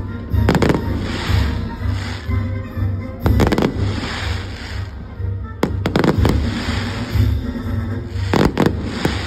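Aerial fireworks shells bursting in quick clusters of sharp bangs, about every two and a half seconds, over a loud show soundtrack with a steady pulsing bass beat.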